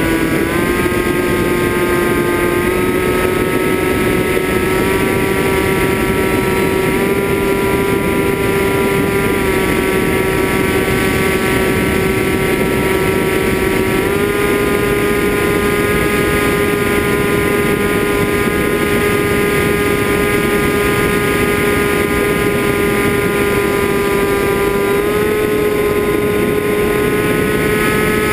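FPV drone's brushless motors and propellers whining steadily. The pitch steps up in small jumps several times as the throttle changes, over a loud rush of prop wash and wind.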